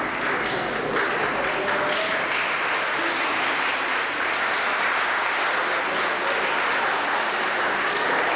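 Theatre audience applauding steadily, the clapping of many hands.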